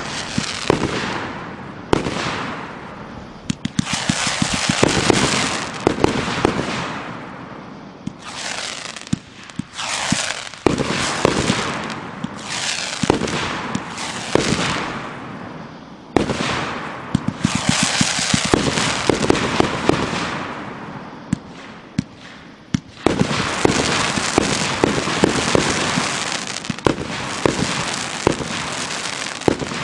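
Aerial fireworks firing in quick succession: repeated sharp bangs of shells bursting, each followed by a fading hiss of burning stars, with a short lull about a third of the way in and again after about two-thirds.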